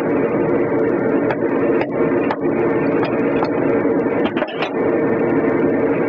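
A machine running with a steady drone and hum, with scattered small clicks and knocks as a mower tire is handled on its steel rim, a few of them close together about four and a half seconds in.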